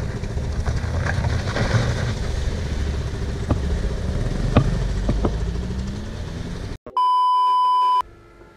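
Honda Unicorn's single-cylinder engine running as the motorcycle rides a rough dirt road: a steady low rumble with wind and a few sharp knocks, its pitch rising a little near the end. It cuts off suddenly about seven seconds in and is followed by a loud, steady electronic beep lasting about a second.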